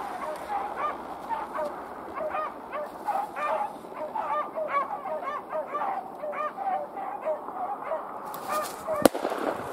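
A pack of beagles baying as they run a rabbit: short, overlapping, pitched calls, several a second, without a break. Near the end comes a single sharp gunshot.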